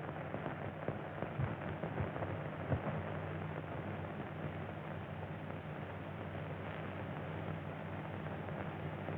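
Steady hiss and crackle of an old optical film soundtrack, with a low hum and scattered faint clicks.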